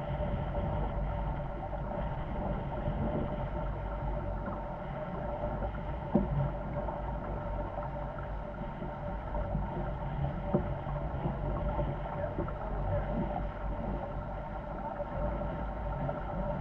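Corsair F-24 trimaran under sail: a steady rush of water along the hulls, with wind noise on the microphone. Two brief knocks, about six seconds in and again about ten and a half seconds in.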